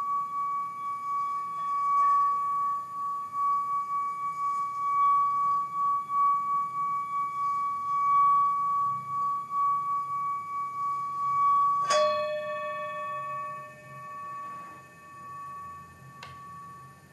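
Hand-held metal singing bowl played by rubbing a wooden mallet around its rim: a steady ringing tone that swells and wavers with each circuit. About twelve seconds in the bowl is struck once, adding a lower note, and rings on, slowly fading.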